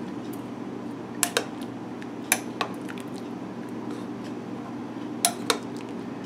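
Metal ladle stirring red beans in a slow cooker's crock, knocking against the crock in three pairs of sharp clinks, over a steady low hum.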